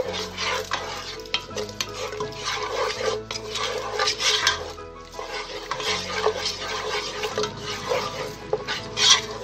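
Grated onion frying in olive oil and a little water in a pot, sizzling and bubbling while a wooden spoon stirs it, with frequent sharp clicks and scrapes of the spoon against the pot.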